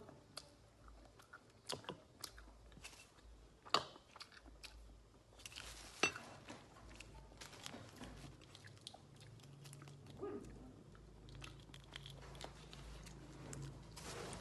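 Faint chewing with small clicks and crackles, a few sharper ones about two, four and six seconds in: a boiled balut duck egg being picked apart by hand and eaten.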